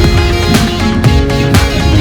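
Background music with a steady beat, about two beats a second, and plucked string notes.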